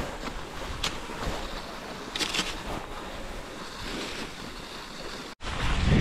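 Cross-country skis hissing along a groomed snow track, with a few short crunches of poles or skis biting the snow, and wind on the microphone. The sound cuts out for an instant near the end.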